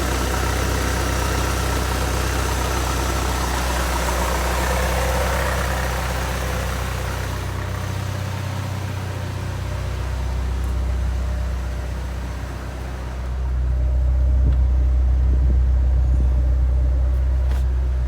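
Honda Integra engine idling with the AC compressor running while the AC system is being recharged with refrigerant. About three-quarters of the way through, the low hum grows clearly louder.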